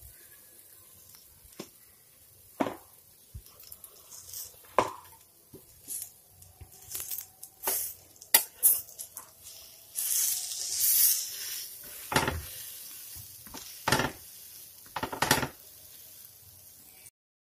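Pav toasting in butter on a hot flat griddle (tawa), sizzling softly, with a louder sizzle about ten seconds in. A steel spatula and spoon scrape and tap against the griddle now and then.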